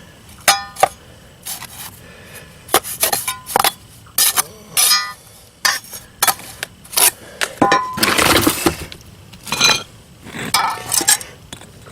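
Hard pavers and masonry tools knocking and clinking together as they are handled, a dozen or so separate sharp clacks, some with a short ring. A longer scraping noise comes about eight seconds in.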